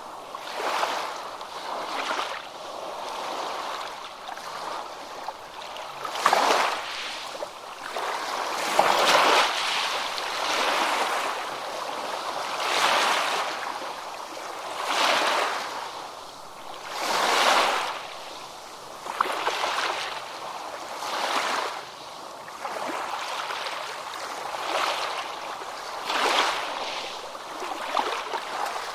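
Ocean waves crashing and washing in: a hiss of surf that swells and fades about every two seconds, with little deep rumble.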